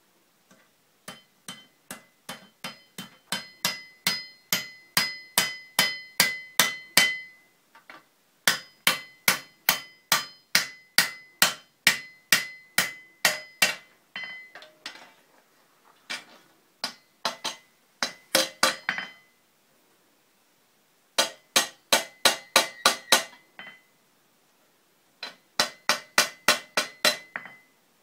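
Blacksmith's hand hammer striking hot iron on an anvil in steady runs of about three blows a second, each blow leaving a high ringing tone from the anvil. The runs stop and start again several times, and the blows grow louder through the first run.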